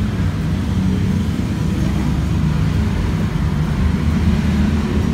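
Steady low rumble of road traffic, with no sudden sounds standing out.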